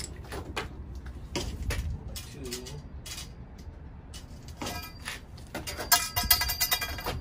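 A hand tube cutter and a length of copper refrigeration tubing being handled: scattered light clicks and knocks, then near the end a quick run of metallic clicks and clinks with a ringing tone.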